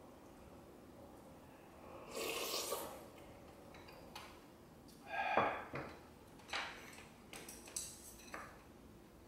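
Someone eating soup close to the mic: a slurp from the spoon about two seconds in, a louder eating sound about five seconds in, then several short clicks of chopsticks and spoon against a bowl.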